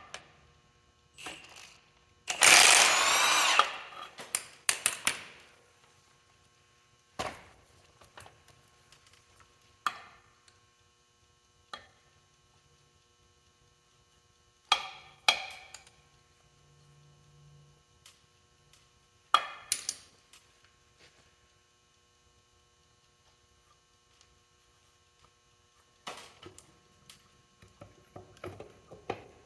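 A power tool run in one short burst of about a second and a half near the start, then scattered metal clanks and knocks of tools and parts, several seconds apart, over a faint steady hum.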